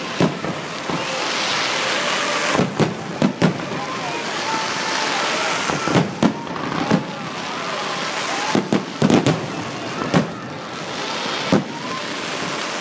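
Fireworks display: about a dozen sharp bangs of bursting shells at irregular intervals, several in quick clusters, over a continuous crackling hiss.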